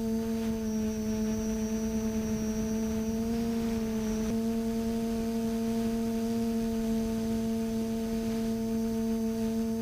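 TBS Discovery quadcopter's brushless motors and propellers humming steadily in flight, heard from the camera on board: one low steady tone with higher overtones over a light hiss, shifting slightly about four seconds in.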